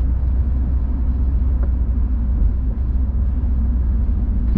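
Steady low rumble of a car driving in traffic, heard from inside the cabin: engine and tyre road noise.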